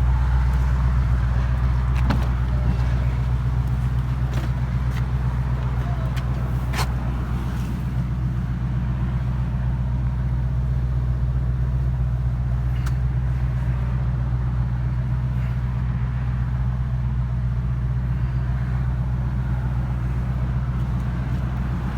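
Ford Mustang engine idling steadily, with a few faint clicks heard now and then; the owner is unsure whether its tick is normal or a sign of a fault.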